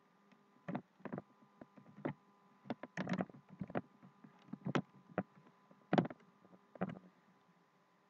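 Computer keyboard keys and mouse buttons clicking at irregular intervals, about a dozen sharp clicks, over a faint steady electrical hum.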